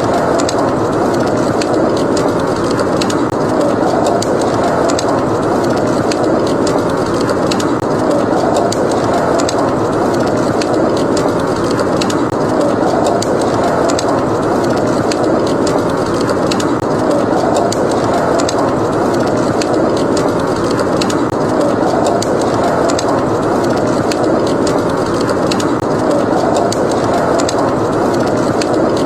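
Blizzard wind blowing steadily, swelling and easing slowly, with a wood fire crackling over it in frequent small, sharp pops.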